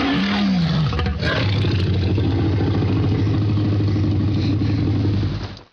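Tyrannosaurus rex roar sound effect: a pitched cry that falls in the first second, then a long, low, steady growl that cuts off suddenly near the end.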